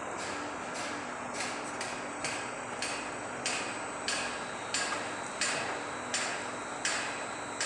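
Construction-site machinery running with a steady hum. About a second and a half in, a regular series of sharp, hammer-like knocks starts, about one and a half a second.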